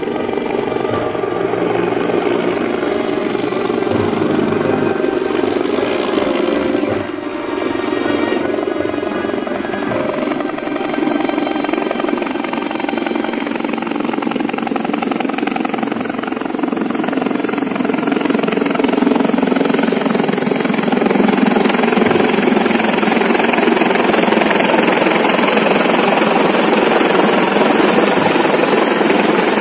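Helicopter running overhead, a steady dense rotor and engine sound that grows louder in the second half as it comes closer.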